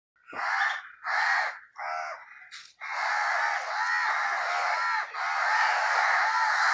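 Crows cawing: three separate caws in the first two seconds, then from about three seconds in a dense, continuous din of a large flock of crows cawing over one another.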